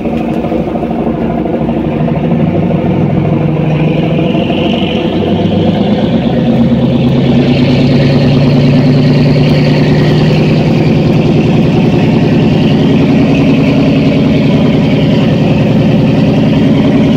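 A fishing boat's engine running steadily, getting louder over the first several seconds and then holding even.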